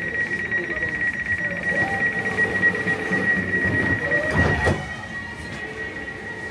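Elizabeth line Class 345 train's door-closing warning: a high rapid beeping tone that runs on steadily. About four and a half seconds in the sliding doors shut with a thud.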